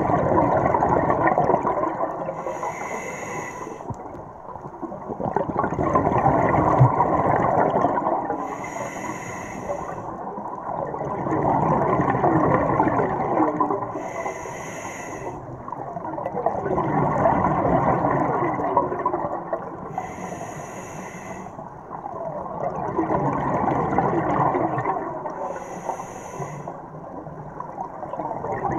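Scuba diver breathing through a regulator underwater: a brief hiss of inhalation followed by a long burst of bubbling exhaust, repeating about every six seconds, five breaths in all.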